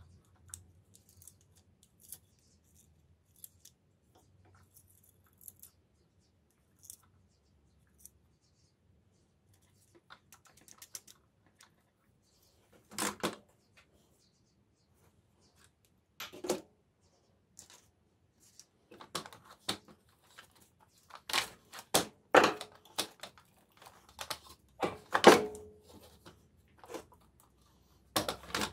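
Small clicks and clatter of parts being handled while a brushed electric radiator-fan motor is taken apart. Faint ticks from the carbon brush holder and its springs come first, then louder knocks and rattles of the plastic fan shroud and motor parts being moved about, with a cluster of sharp knocks in the second half.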